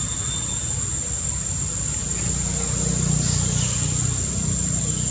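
A steady high-pitched insect drone with a low rumble underneath that grows a little louder about halfway through.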